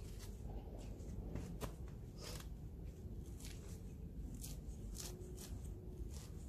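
Rustling and scattered sharp crackles of a clump of grassy plants and their roots being pulled and cut apart by gloved hands, over a steady low background rumble.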